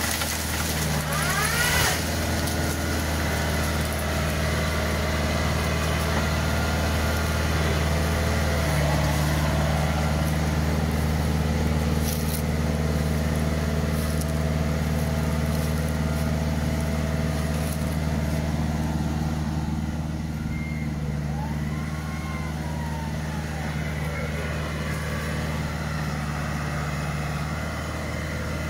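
Tractor engine and the hydraulics of a tractor-mounted tree shaker running steadily, a low even drone whose tone shifts slightly about nine seconds in.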